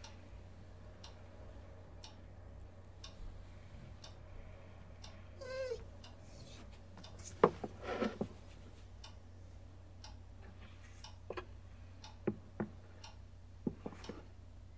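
A clock ticking about once a second over a steady low hum. Two short wavering squeaks come about five and a half and eight seconds in, and a few sharp clicks come near the end.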